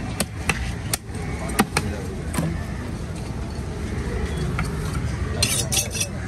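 A large tuna is sliced into a steak with a long knife on a wooden chopping block: scattered sharp knife clicks and knocks, then a quick cluster of sharp clicks near the end. A steady low rumble runs underneath.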